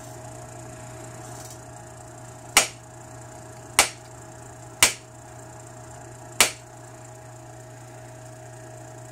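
Four sharp strikes of an antler billet on an obsidian preform, about a second apart, knocking short flakes off its edge.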